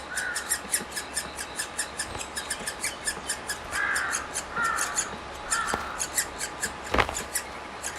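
Several short, harsh squawking calls from Okinawa woodpeckers: one at the start and three more close together about four to six seconds in. Behind them runs a steady, rapid high-pitched insect chirping, and a single sharp knock comes about seven seconds in.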